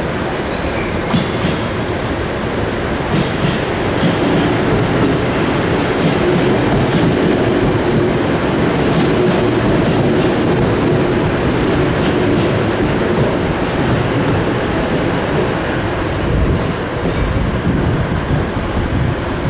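A JR 205 series electric multiple-unit train pulling into a station: steady rumble of wheels on rail with light clicking over the joints. A thin high-pitched squeal comes in about three quarters of the way through as it slows.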